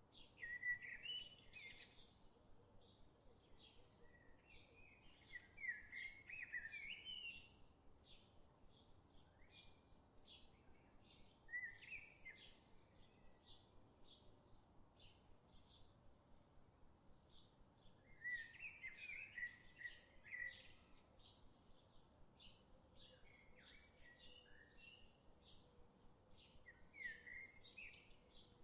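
Songbirds singing in several separate bursts of warbling phrases, over a steady series of short, high chirps at about two a second.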